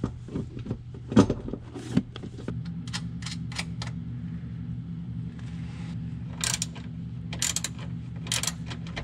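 Scattered metallic clicks and knocks as nuts and fittings on the diesel heater's mounting are worked by hand from beneath the van's floor, over a steady low hum.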